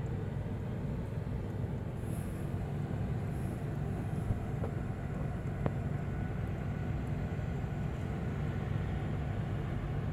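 A steady low rumble from an unidentified source, with two faint ticks about halfway through.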